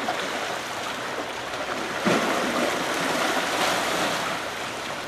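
Rushing river water below a dam, with a hooked white bass splashing and thrashing at the surface as it is reeled in and swung out, starting suddenly about two seconds in.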